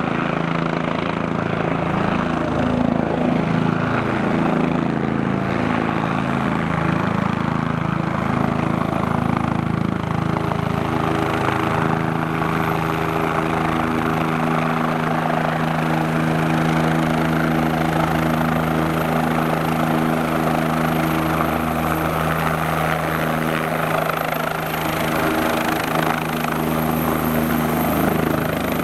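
Bell 427 twin-turbine helicopter approaching and settling into a low hover to land: steady rotor and turbine noise. The rotor's tones shift in pitch during the approach, then hold level from about twelve seconds in.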